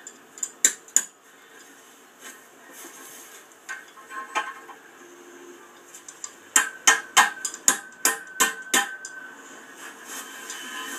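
Metal stay-point fastener being clipped into the end of a steel fence stay tube: two light metal clicks under a second in, then a run of about eight sharp metallic knocks with a faint ring, starting about six and a half seconds in.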